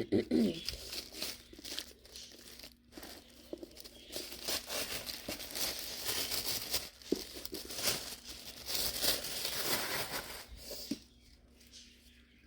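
Wrapping being crinkled and torn off a hardback book, a run of crackling and rustling that is busiest in the middle and dies down near the end.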